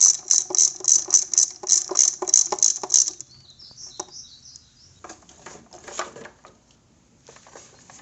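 Socket ratchet turning a 10mm socket to loosen a bolt on the air filter box cover: a quick, even ratcheting of about three strokes a second that stops about three seconds in. Then light clicks and handling noise as the loosened part is worked free.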